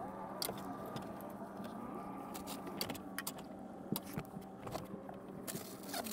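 A cooking spoon clicks and scrapes against a stainless skillet as filling is scooped onto tortillas, with a steady low hum underneath.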